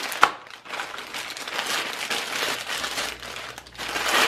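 Packaging crinkling and rustling as the keyboard's attached cable is handled and pulled free, with one sharp knock just after the start.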